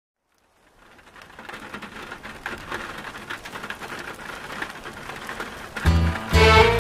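Recorded rain, an even patter of drops, fading in and growing louder. Music with a low bass comes in near the end.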